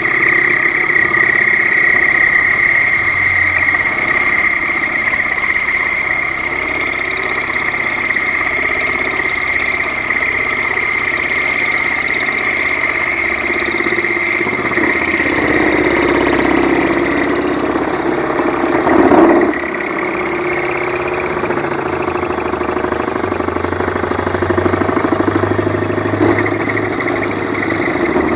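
SIEG X1L mini milling machine running an end mill through a steel workpiece: a steady high motor and spindle whine over rough cutting chatter, swelling briefly louder about two-thirds of the way through. The chatter comes from the mill's bad vibration, which the owner blames on its lack of rigidity.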